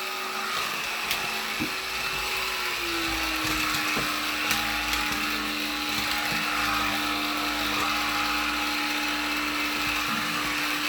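Black & Decker cordless lithium pet vacuum running steadily as it is pushed across the floor, a motor hum over a rushing of air, with its pitch stepping down slightly about three seconds in.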